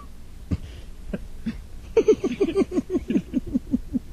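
A man laughing: after a few soft isolated sounds, a quick run of short "ha" pulses, about six a second and each dropping in pitch, starts about two seconds in and tapers off.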